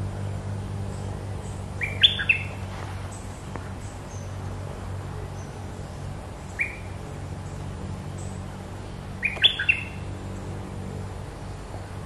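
Songbird calls: a quick cluster of bright chirps about 2 seconds in, a single note in the middle, and another cluster near the end, with faint thin high notes between, over a steady low hum.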